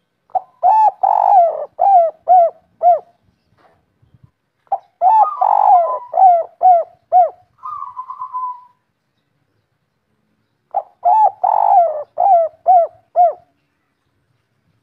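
Spotted dove (tekukur) cooing three times. Each phrase is a run of mellow coos with one longer drawn-out note, then three short 'kuk' notes at the end, the 'kuk 3' song type. A short noisy sound follows the second phrase.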